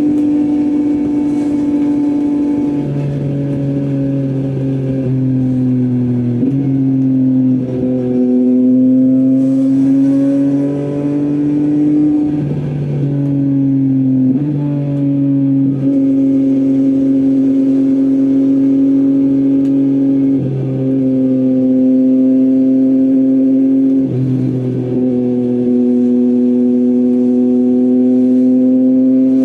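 Yamaha MT-09's inline three-cylinder engine through an Akrapovic full-system exhaust, running at fairly steady riding revs. Its pitch dips and steps to a new level several times over the stretch.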